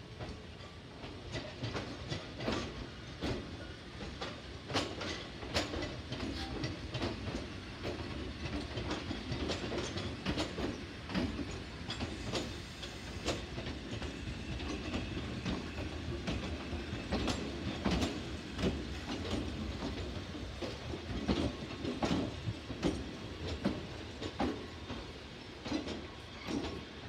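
Two-car Toyama Chihō Railway 10030-series electric train rolling slowly through yard trackwork during shunting. Its wheels clack irregularly over rail joints and points above a steady low rumble.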